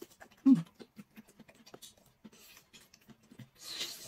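Close-up eating sounds: soft chewing and scattered small mouth clicks, with a short hummed "mm" about half a second in and a brief sucking slurp near the end.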